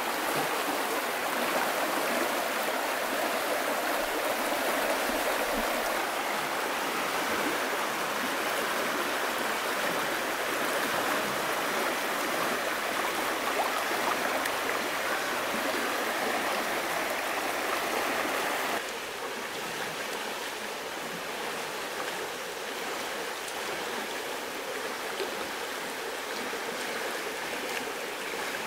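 Shallow stream running over stones, a steady rushing of water that becomes a little quieter about two-thirds of the way through.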